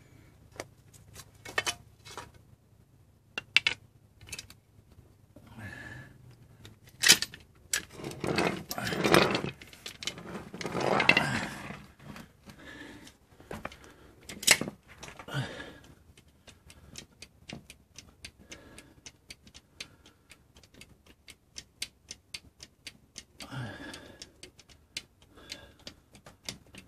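Hydraulic bottle jack set in place with knocks and scraping, then its handle pumped, giving a steady run of rapid clicks as the jack raises the front axle of a Land Rover Defender to rotate it into line with the radius arm bolt.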